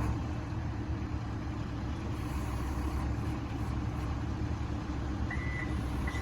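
Diesel engine of an excavator running steadily. About five seconds in, a machine's backup alarm starts to beep.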